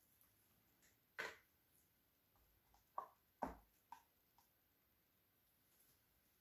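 A few faint knocks and taps on a painted bamboo board as gloved hands handle it and set it down on the work surface, four sharper ones between about one and four seconds in, the rest near silence.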